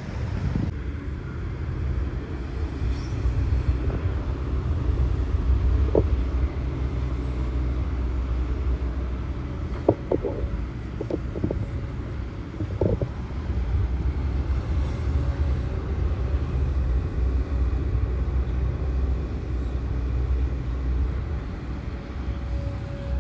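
Hitachi Zaxis hydraulic excavator's diesel engine running steadily under digging load, with a few short clanks of the working gear about six seconds in and again around ten to thirteen seconds in.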